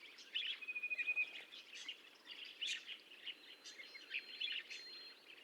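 Faint budgerigar chatter: a run of quick chirps and short warbles, with a brief rapid trill about a second in and a few thin held whistled notes.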